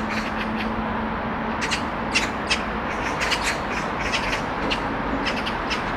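Short, high chirping bird calls repeating irregularly over a steady background rumble, with a low hum that fades out about halfway through.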